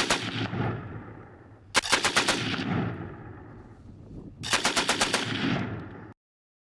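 Machine gun firing short bursts of about five or six rounds, a couple of seconds apart, each trailing off in echo. The sound cuts off suddenly near the end.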